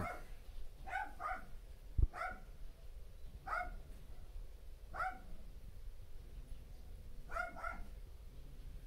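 A dog barking in short, irregularly spaced barks, about seven in all, some single and some in quick pairs. A dull low thump about two seconds in.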